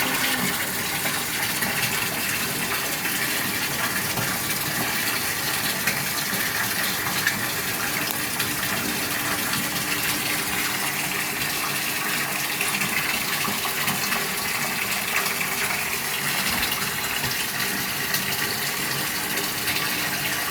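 Walk-in bathtub filling: water gushing steadily from the tub spout under strong pressure from a three-quarter-inch supply line.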